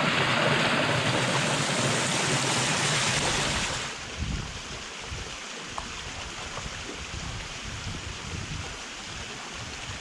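Small waterfall splashing into a freshwater pool, a loud, even rush heard close up. About four seconds in it drops suddenly to a quieter, more distant splashing, with an uneven low rumble of wind on the microphone.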